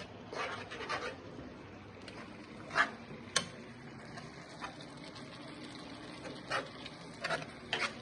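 Spatula stirring sambal in a pan: short scrapes now and then over a steady low hiss, with two sharp knocks a little under three and a half seconds in.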